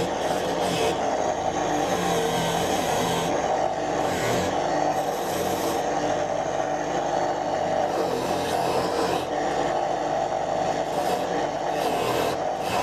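Angle grinder running steadily at speed, its disc rasping and scraping against the workpiece in uneven strokes.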